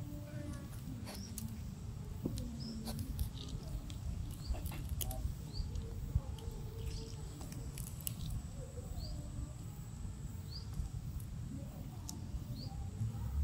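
Black-shouldered kite tearing at a mouse carcass with its beak: scattered wet clicks and ticks over a low rumble. Short high chirps repeat every second or two behind it.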